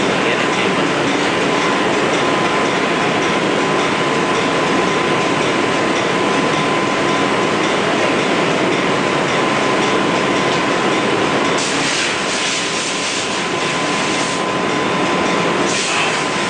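A milling spindle on a KUKA robot arm running and carving, a loud steady machining noise with a thin steady whine that stops about two-thirds of the way through, after which the noise turns rougher and hissier.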